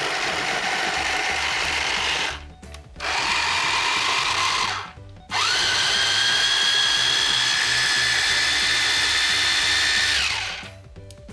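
Electric countertop blender grinding soaked dates and milk into a date paste, run in three bursts: two short runs, then a longer run of about five seconds. Its motor whine rises as it spins up and drops as it winds down near the end.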